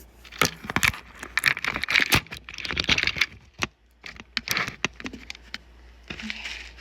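Parcel packaging being handled and opened by hand: crinkling and rustling with small clicks and knocks, pausing briefly about four seconds in.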